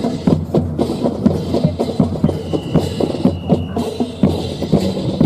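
Drum-driven music with a fast, steady beat of sharp strikes, and a thin high held tone for about a second and a half in the middle.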